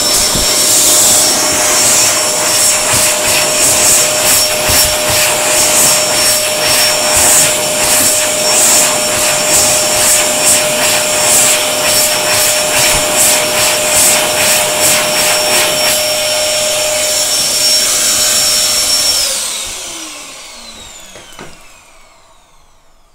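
Airforce electric hand dryer blowing loudly, a rush of air with a steady motor whine, the air noise wavering as hands move in the stream. About nineteen seconds in it cuts out and the motor winds down over a few seconds, its whine falling in pitch.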